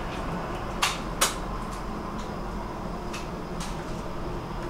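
Stockholm metro train running, a steady rumble with a few sharp clicks: two loud ones about a second in and two fainter ones past the middle.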